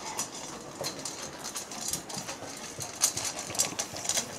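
Bernese mountain dog eating dry kibble from a stainless steel bowl: irregular crunching and clinking, with the sharpest crunches about three seconds in and again near the end.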